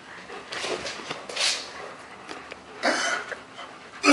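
Soft, breathy bursts of stifled human laughter, three short puffs spread across the few seconds.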